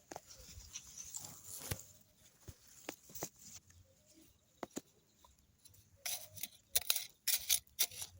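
Scattered crackles and rustling from potato plants and soil being handled and dug into to check for tubers, busier and louder in the last two seconds.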